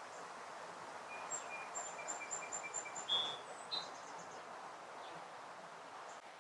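Faint outdoor ambience with a small bird calling: a quick, even series of about seven short high chirps, followed by two brief higher notes.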